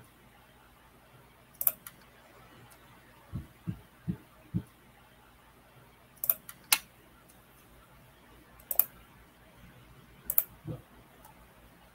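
Computer mouse clicking about five times, sharp and short, some clicks in quick pairs, with a few soft low thumps in between over a quiet background hum.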